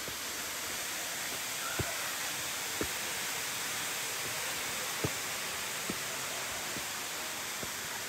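Canyon waterfall pouring steadily into a rock pool: an even hiss of falling water, with a few faint low knocks scattered through it.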